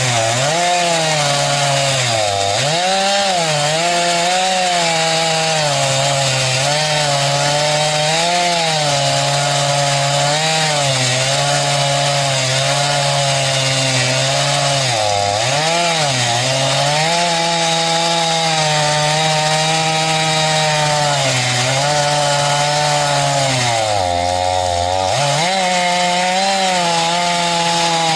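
Two-stroke chainsaw on an Alaskan chainsaw mill ripping cedar into boards, running at high revs under load. Its pitch sags briefly several times as the chain bogs in the cut, with a longer, deeper dip near the end.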